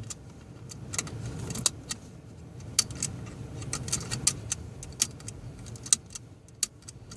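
Seat belt tongue being unlatched from and clicked back into its buckle again and again, the repeated buckling that switches off the Dodge seat belt chime: a run of sharp irregular clicks and metal rattles over a low steady hum. No chime sounds.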